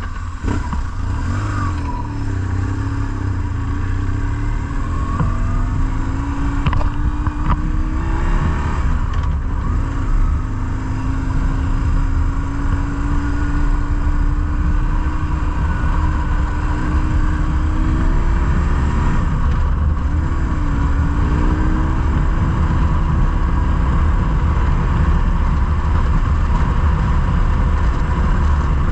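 BMW R1150GS Adventure's air-cooled boxer twin pulling away and accelerating. The engine note rises, drops at two gear changes, then settles into a steady cruise, over a low wind rumble on the microphone that builds with speed.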